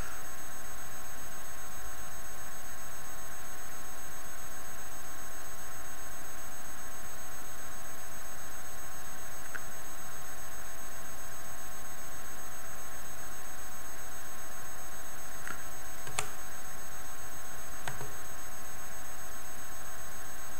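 Steady electrical whine and hiss of the recording's background noise: several constant high tones over an even hiss. Two faint clicks come near the end.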